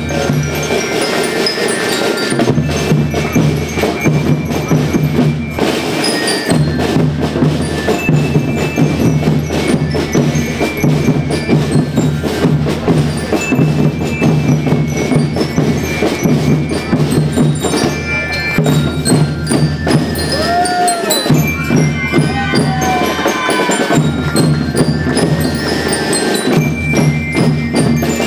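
School rhythm band playing a steady beat on drums and percussion, with bright bell-like tones from mallet instruments over held low notes. A few sliding tones come in about two-thirds of the way through.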